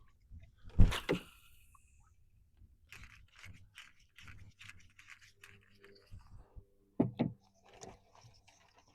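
Knocks, clicks and scrapes of hands fitting a flag onto a kayak. There is one loud thump about a second in, then a run of small taps and clicks, and two sharper knocks near the end.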